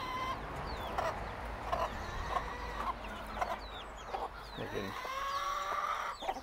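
Chickens clucking: a hen's short clucks come about every half second, with chicks peeping in short high falling chirps. Near the end a long drawn-out, slightly rising call is held for about a second.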